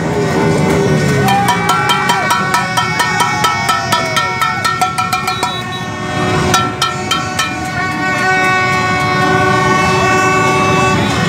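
Many horns sounding at once in a dense crowd of motorbikes, several held on at steady, different pitches. Rapid sharp beats of banging or drumming run through the first half.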